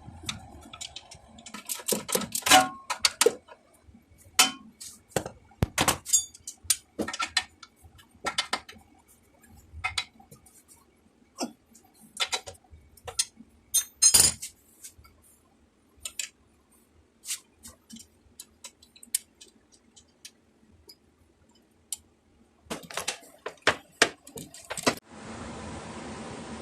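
Metal hand tools clinking and clanking against metal parts during shock absorber work: irregular sharp clicks and knocks, some ringing briefly. Near the end a steady hiss suddenly takes over.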